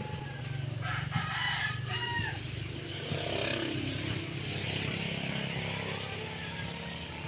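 A rooster crowing about a second in, over a low steady hum.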